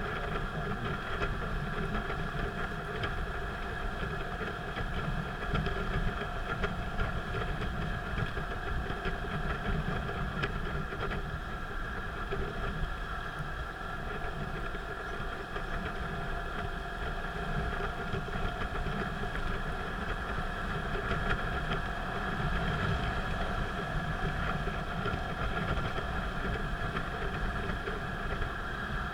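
Vehicle driving at steady speed on an expressway: continuous engine and road noise, a low rumble with a steady hum over it.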